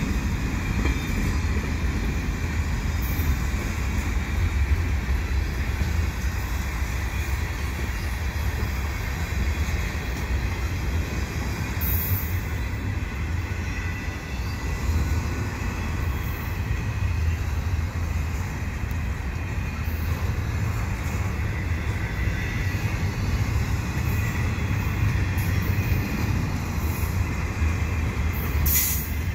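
Canadian Pacific freight train of boxcars and double-stack container well cars rolling past close by. Its wheels rumble steadily on the rails, with a faint, high wheel squeal over the rumble.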